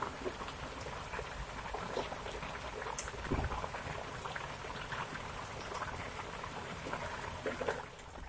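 Rain falling, an even hiss dotted with many small scattered drop ticks.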